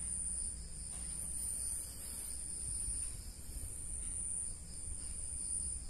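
Crickets chirping in a steady high trill that swells and fades slightly, over a low steady rumble.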